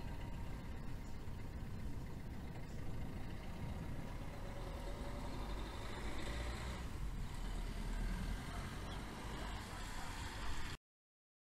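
Steady low outdoor rumble with a broad noise over it, swelling slightly in the middle, then cutting off suddenly near the end.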